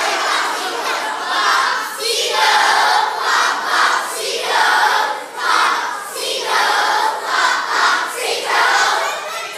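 A large group of children chanting together in short, rhythmic phrases with brief gaps between them.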